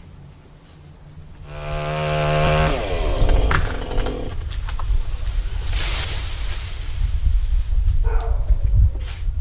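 Chainsaw revving up to full throttle about a second and a half in, then cutting wood, its pitch dropping and wavering under load.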